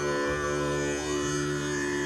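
Improvised acoustic music: a harmonica holds long steady notes over deep bass notes plucked on a guitarrón, the bass moving to a new note about once a second.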